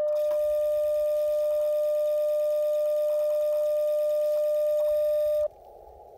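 Icom IC-705's CW sidetone: a steady single tone of about 600 Hz from the radio's speaker while it keys a tuning carrier for the mAT-705Plus antenna tuner. It cuts off about five and a half seconds in, when the tuner has found its match, and the receiver's faint hiss returns.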